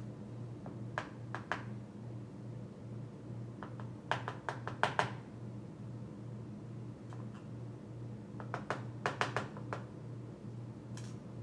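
Small metal lock parts and tools being handled while the key pins come out of a Mul-T-Lock 7x7: light sharp clicks and taps in a few short clusters, over a steady low hum.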